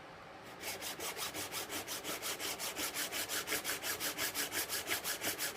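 Steel chisel back being rubbed rapidly back and forth on a coarse 180-grit diamond sharpening stone, a fast, even scraping rhythm of about five to six strokes a second that starts about half a second in. It is the first lapping of a new bevel-edge chisel's back to flatten it.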